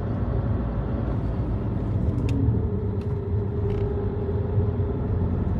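A car driving, heard from inside its cabin: the steady low rumble of engine and tyres on the road. A faint steady hum joins for a couple of seconds in the middle.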